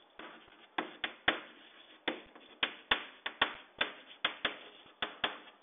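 Chalk writing on a blackboard: a string of sharp, irregular taps and clicks, a few per second, as letters are written.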